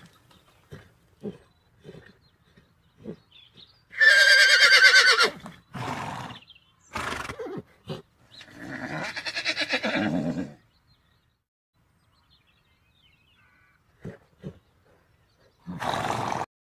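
Horse whinnying: a loud, quavering neigh about four seconds in and a second whinny that slides down in pitch around the middle, with short breathy snorts between and near the end.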